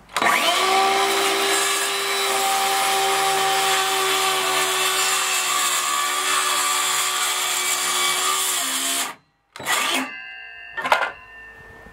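DeWalt 20V MAX cordless circular saw (DCS391) spinning up and crosscutting through a 1-inch-thick board, a steady loud whine for about nine seconds before it stops abruptly. A couple of knocks follow near the end.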